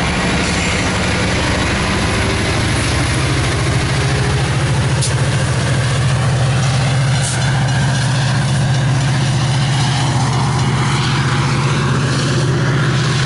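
Diesel engine of a Metra MP36PH-3C passenger locomotive running steadily as it stands at the platform, a loud low drone that grows a little stronger about two and a half seconds in.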